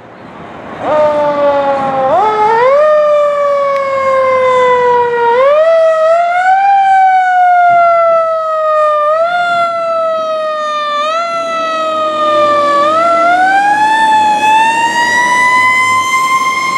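Aerial ladder fire truck's siren winding up quickly and sliding down slowly, over and over, then climbing to a long steady pitch near the end, with the truck's engine running underneath.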